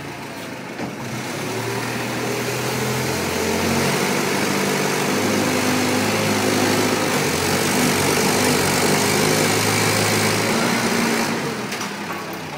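An engine running, its pitch stepping up and down. It gets louder over the first few seconds and eases off near the end.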